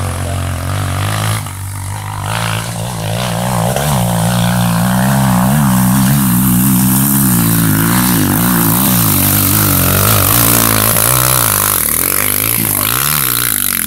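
Honda XR 230 dirt bike's single-cylinder four-stroke engine revving hard under load as it climbs a steep dirt hill, the revs rising and falling over and over. It grows louder about four seconds in.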